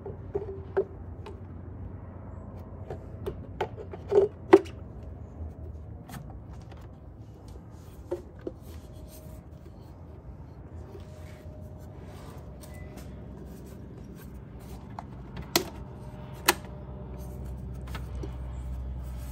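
Plastic body panels of a Honda Helix scooter clicking and knocking as the air box and transmission cover are worked loose by hand. There are scattered sharp knocks, the loudest about four seconds in and twice near the end, over a low hum that grows louder toward the end.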